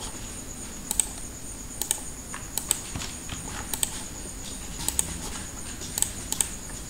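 Irregular sharp clicks of a computer mouse and keyboard being worked, about one a second, some in quick pairs, over a steady high-pitched whine.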